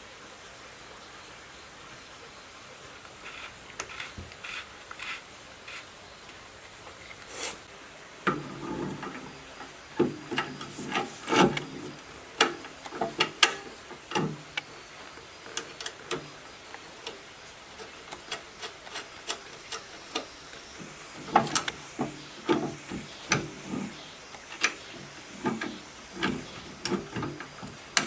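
Handling noise: irregular sharp clicks and knocks with some rubbing and scraping, a few at first and much busier from about eight seconds in.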